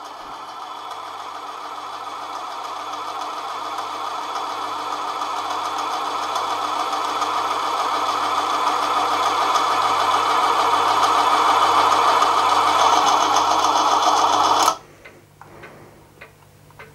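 Small Manson lathe running under a deep cut in aluminium bar, peeling off a long continuous spiral chip, slowed down by the depth of cut; a steady mechanical running sound with several pitched tones that grows steadily louder. It stops suddenly about three-quarters of the way through, leaving a few faint ticks.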